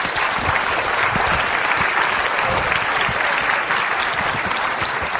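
Audience applauding, sustained and even, after a keynote talk.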